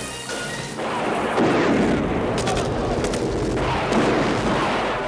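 Explosions and gunfire on an action film's soundtrack: a dense blast starting about a second in, with sharp cracks in the middle and again near the end.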